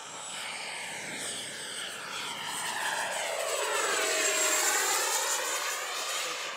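The 64mm electric ducted fan of an XFly T-7A Red Hawk foam RC jet in flight: a high, thin fan whine over a rushing noise. It swells as the jet makes a close pass, is loudest about four and a half seconds in, then eases off.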